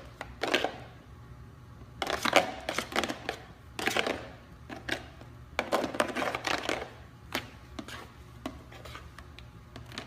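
Sticky fluffy slime of glue, shaving cream and Tide being mixed in a bowl: irregular wet smacks and clicks in bursts, with short pauses between.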